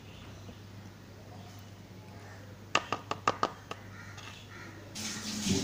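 A metal spoon tapped quickly about six times against a plastic bowl, knocking seasoning powder off onto the fries, each tap sharp with a slight ring. A short noisy burst follows near the end.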